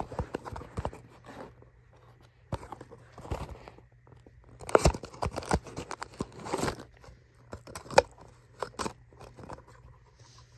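A small cardboard Tomica toy-car box being opened by hand: irregular scraping, rubbing and clicking of the cardboard flap and inner tray as they are worked loose and slid out, loudest midway, with a single sharp click about eight seconds in.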